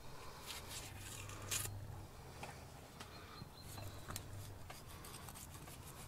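Faint scraping and soft clicks of a knife slicing through fat and membrane on a lamb carcass, one stroke a little louder about a second and a half in.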